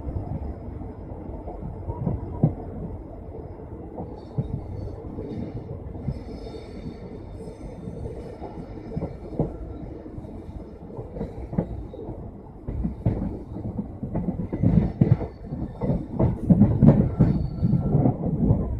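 Passenger train coach running on the rails, its wheels rumbling and clattering over rail joints and points. There is a faint high wheel squeal about a third of the way in, and the clatter turns louder and denser in the last third.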